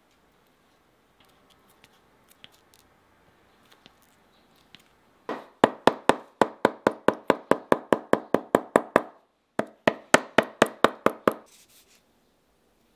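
Shoemaker's hammer knocking rapidly on the bottom of a welted shoe, about five blows a second, in two runs with a short pause between them.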